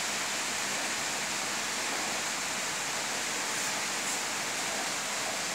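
Steady, even hiss of background noise, with no other sound standing out.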